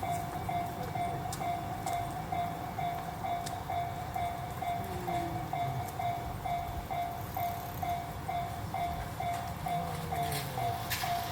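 Japanese level-crossing alarm bell ringing steadily, an even electronic ding repeating about twice a second.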